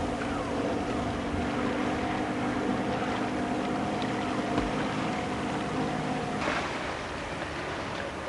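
Boat engine running steadily at a low, even note, over wind and lapping sea; the engine note cuts off about two seconds before the end, leaving the wind and water.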